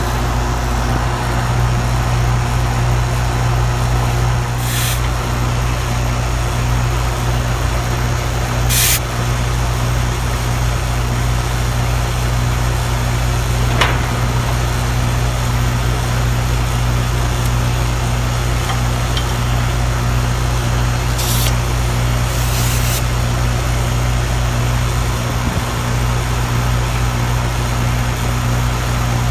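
Rheem R-410A outdoor air-conditioning condensing unit running with a steady low hum. A few short hisses sound about 5, 9, 21 and 22 seconds in, with a single sharp tick near the middle.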